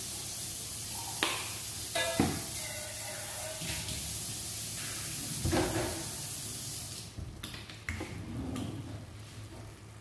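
Chicken pieces sizzling in a hot pot just after soy sauce is poured in, with a few knocks of a metal ladle against the pot. The sizzle fades after about seven seconds.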